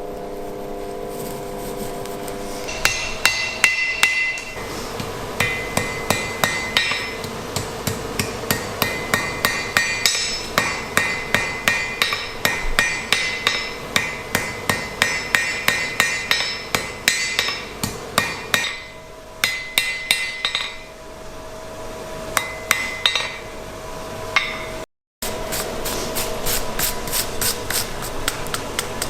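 Blacksmith's hand hammer striking hot iron on an anvil in a steady series of ringing blows, about three or four a second, pausing briefly a couple of times.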